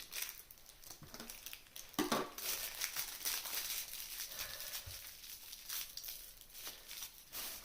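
Irregular crinkling and rustling with scattered clicks, as of something being handled.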